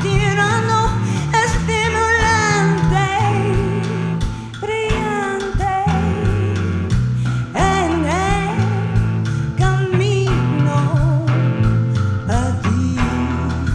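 Live band playing a rock song with guitar, bass, drums and cello. A wavering melody line bends over steady bass notes and regular drum hits.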